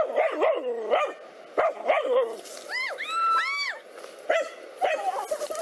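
Dog barking and yelping in quick, agitated bursts while confronting a snake, with a run of higher-pitched yelps about three seconds in.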